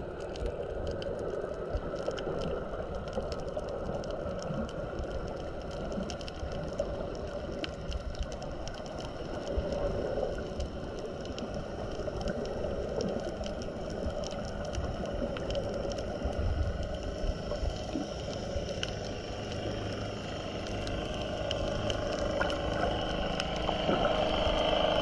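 Muffled underwater sound heard through a submerged camera: a steady wash of moving water with many small clicks and crackles, growing louder near the end.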